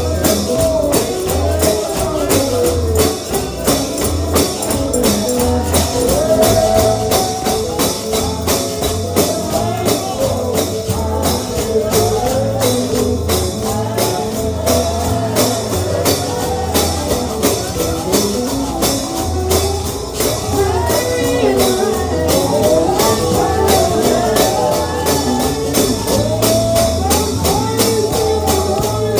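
Bluegrass gospel music: a tambourine beats a quick, steady rhythm over pulsing bass notes and a sliding melody line.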